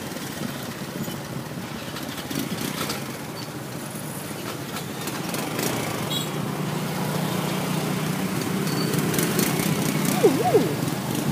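Motor scooter engines running at low speed in a crowded line of motorbike traffic. The engine hum grows louder through the second half.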